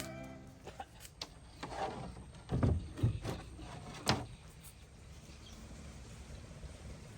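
Handling noises from working on an old Polytron tape deck: several irregular knocks and clatters of parts, the loudest a few seconds in, then a faint steady low hum.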